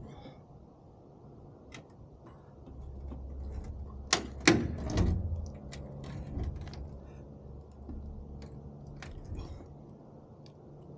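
Scattered sharp clicks and knocks, with a loud cluster of knocks about four to five seconds in, over a faint low steady hum.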